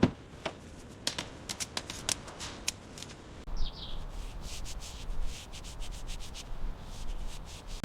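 Irregular light clicks and taps over a faint rubbing sound, with a brief high squeak about halfway through.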